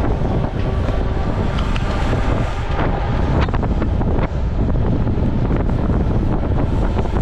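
Wind buffeting the microphone of a camera riding on a gravel bike at speed, a steady loud rumble with the running noise of the bike underneath. A few sharp clicks or rattles come between about three and four seconds in.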